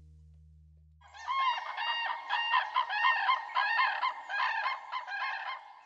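A flock of wild birds calling: many loud, overlapping, repeated calls start about a second in and go on throughout, after a fading musical tone.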